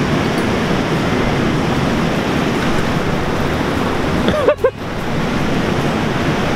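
Loud, steady rushing of fast river water, with a brief voice-like exclamation about four and a half seconds in.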